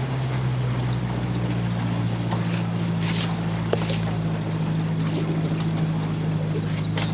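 Boat motor running at a steady speed under way, with wind and water noise.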